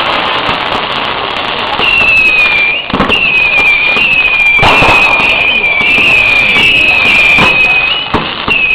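Fireworks going off: sharp bangs and crackles, with a high wavering whistle that starts about two seconds in and is held for about six seconds.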